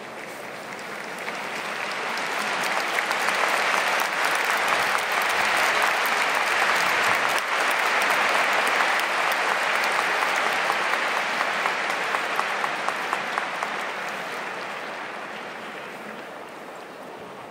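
Stadium crowd applauding: dense clapping that swells over the first few seconds, holds, and fades away toward the end.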